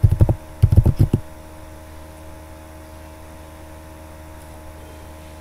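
Steady electrical mains hum and hiss on the recording: a low buzz of several fixed tones over an even noise floor. A few short voice bursts come in the first second.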